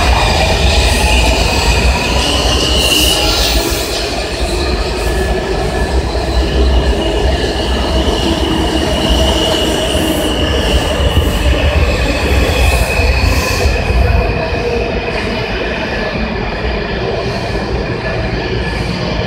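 Washington Metro train rolling along a station platform: a steady low rumble with a high, steady squeal from the wheels and a few brief clacks.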